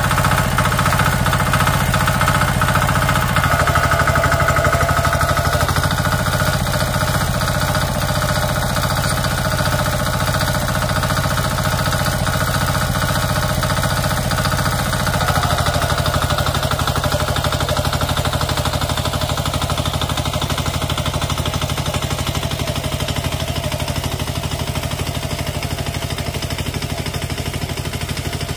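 Tractor engine running steadily while plowing, with a rapid, regular knock; its note shifts slightly about 3 and 15 seconds in.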